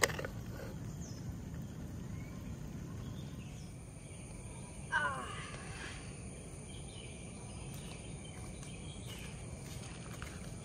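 Steady outdoor background noise with a constant thin, high insect drone. A short clatter comes right at the start, and a brief falling call is heard about five seconds in.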